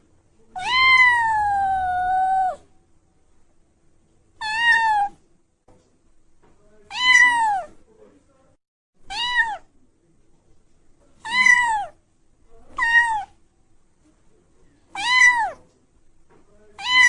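Domestic cat meowing again and again: one long meow of about two seconds, then short meows roughly every two seconds, each rising then falling in pitch.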